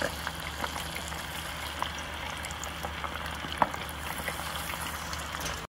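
Karaage (Japanese fried chicken) pieces deep-frying in hot oil: a steady sizzle with scattered small crackles and pops, one sharper pop about three and a half seconds in. The sound cuts off suddenly just before the end.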